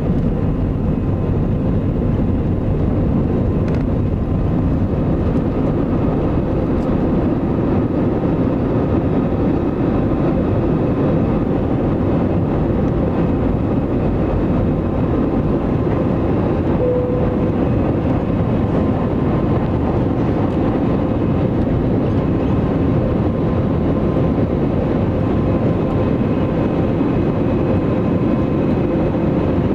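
Airbus A320 jet engines at takeoff power heard inside the cabin from a seat over the wing: a loud, steady roar with a faint steady whine over it, as the airliner lifts off and climbs.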